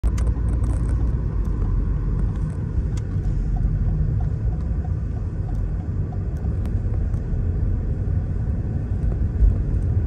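Steady low rumble of road traffic on a city street, with a few faint clicks.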